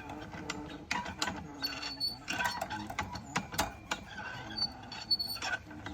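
Hand-operated hoist ratcheting as a heavy metal sculpture is lifted: irregular clicks and chain rattles, with a few short high metal squeaks.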